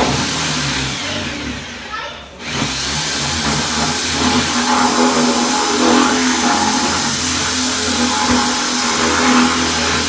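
Red corded electric drill running at speed, boring a hole through a drawer front for a lock. It stops briefly about two seconds in, then runs on steadily.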